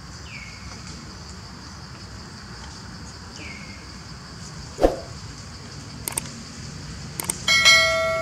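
Steady high insect buzz, with two short falling squeaks in the first few seconds and a sharp knock just before five seconds in. Near the end a click is followed by a bright ringing chime from a subscribe-button animation.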